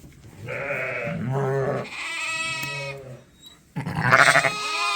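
A ewe and her newborn lamb bleating, several calls in a row, the loudest near the end.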